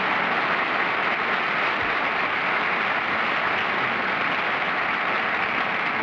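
Studio audience applauding steadily after the mystery occupation is guessed.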